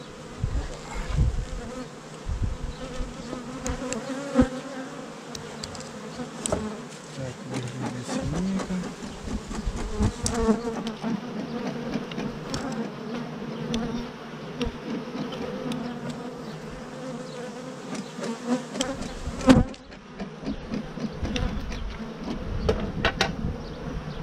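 Honeybee colony buzzing steadily at an open hive, with scattered knocks and clicks from the wooden hive parts and one sharp knock about three-quarters through.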